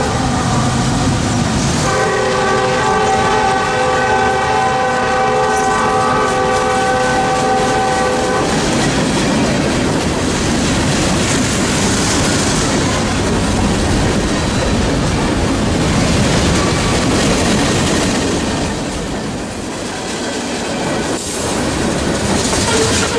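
A Norfolk Southern freight train passing close by. A locomotive horn sounds in a long blast, its chord of several steady tones ending about eight seconds in, over the rumble of the passing GE diesel locomotives. Then the freight cars roll past with a steady clickety-clack of wheels on the rail joints.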